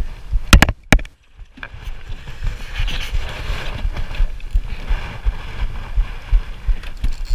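Boat on open water: a low rumble of wind and water with irregular low thumps, after a few sharp knocks and a brief drop-out about a second in.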